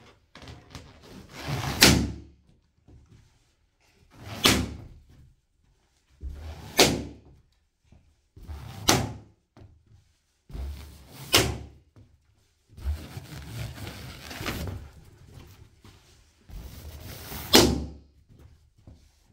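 Latex party balloons being trodden on and burst by studded football boots: about six sharp pops, one every two to three seconds, each led in by a second or so of quieter squashing noise as the boot presses the balloon down.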